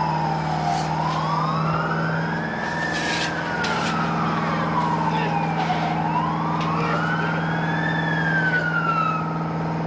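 An emergency vehicle's siren wailing, sliding slowly up and down in pitch about every five seconds and dying away near the end, over a steady engine drone with a few sharp knocks.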